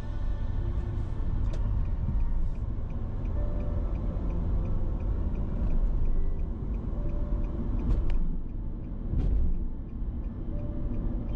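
Car driving through city traffic: a steady low road and engine rumble, with two sharp knocks about eight and nine seconds in.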